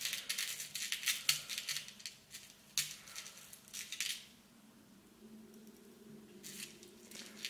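Small amethyst crystal chips clicking and rattling in a plastic compartment organiser box as fingers rummage through them to pick a few out. Busy clatter through the first four seconds, quieter, then another short burst of clicks near the end.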